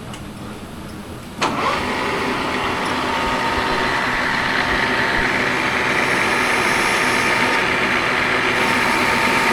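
A machine starts with a click about a second and a half in, then runs steadily with a hum and a constant whine that slowly grows louder.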